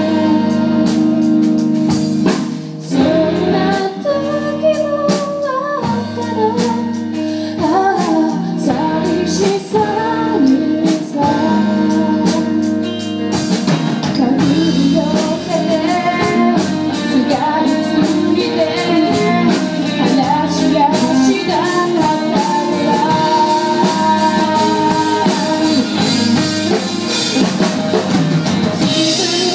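Live rock band playing: a woman singing into a handheld microphone over electric guitars and a drum kit.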